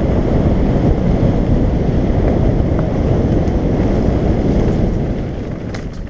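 Wind rushing over the microphone of a camera on a moving mountain bike, mixed with the rumble of the tyres on a gravel forest track. It is loud and steady, then eases off near the end.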